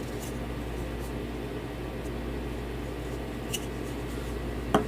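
Steady low background hum of room tone, with a few faint light clicks.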